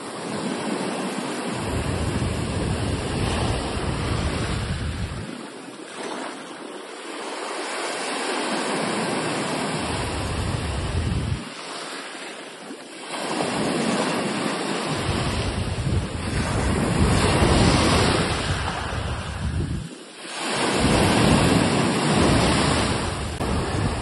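Sea waves surging and washing in, swelling and easing every few seconds, with wind buffeting the microphone in gusts that cut in and out abruptly.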